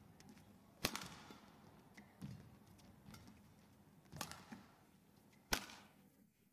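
Badminton rackets striking a shuttlecock in a rally. There are three sharp smacks, about a second in, at about four seconds and at about five and a half seconds, with a softer knock in between.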